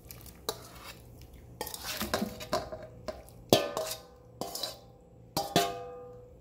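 A metal spoon scraping and knocking against a stainless steel bowl as ackee is pushed out of it into a pot of water. There are several sharp clanks, the loudest about three and a half seconds in, some left ringing.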